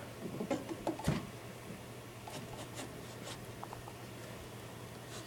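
Soft handling noises as a motorcycle rear shock absorber is turned over by hand: a few light knocks and rubs in the first second or so, then faint rubbing and rustling over a low steady hum.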